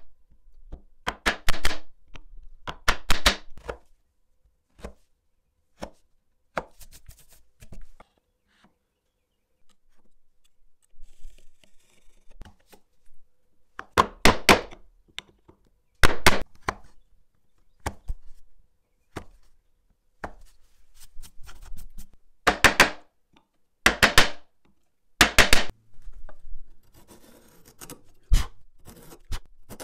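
Wood chisel struck in clusters of quick, sharp blows, chopping waste out of a housing groove in an oak board. Near the end, a short scraping as a router plane cuts the groove floor.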